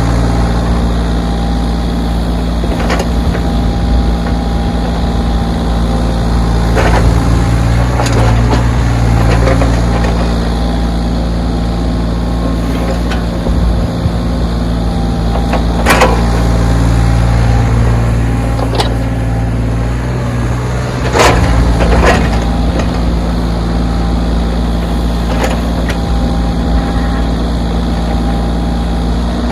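Backhoe's diesel engine running steadily while it works, swelling in level a few times as it takes load. Sharp knocks and clanks come now and then, the loudest about halfway through and again a few seconds later.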